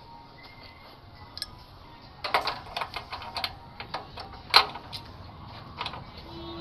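Irregular clicking and tapping of small hard parts being handled, a few isolated clicks at first, then a quick, uneven run of them starting about two seconds in, the loudest about halfway through.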